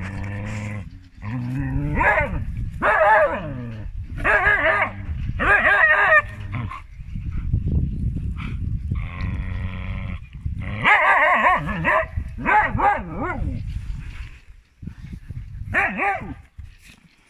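Two Siberian huskies arguing: a run of about a dozen short, wavering, yowling calls, one after another, over low growling, dying away near the end with one last call.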